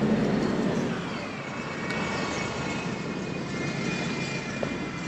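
Steady engine drone with a faint high whine that slowly bends in pitch.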